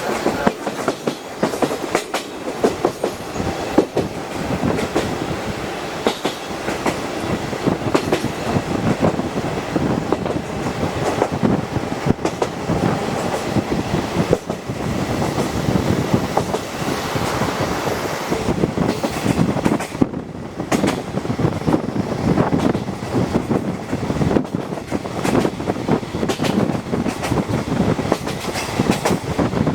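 Passenger coach of a locomotive-hauled train running along the track, heard from inside the carriage: a steady rolling rumble with the wheels clacking over rail joints and much small rattling.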